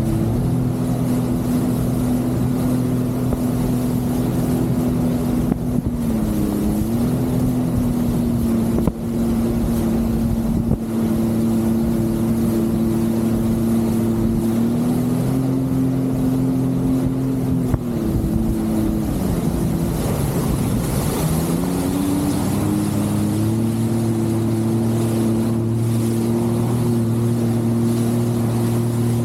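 Jet ski engine running at a steady pace, with wind on the microphone. The engine note dips and rises back twice, briefly about six seconds in and more deeply about twenty seconds in.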